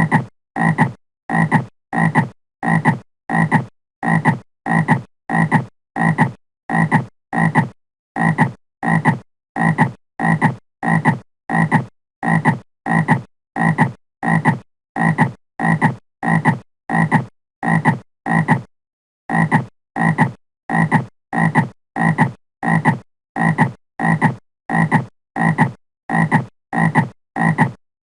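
A frog croaking over and over at a steady pace, about three croaks every two seconds, with one short pause about two-thirds of the way through.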